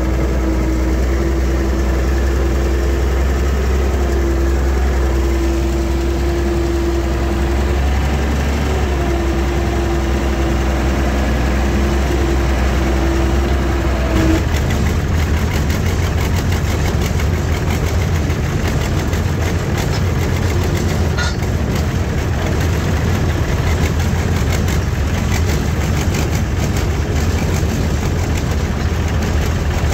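Tractor engine running steadily while towing another tractor on a rigid tow bar. About halfway through, a steady whine stops and the running sound turns rougher and lower.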